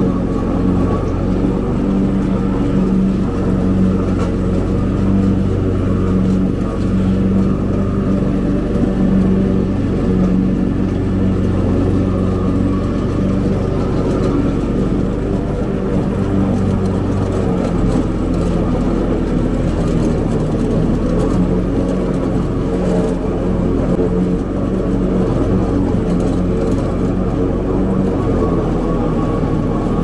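Cub Cadet zero-turn riding mower's engine running steadily at an even pitch while mowing.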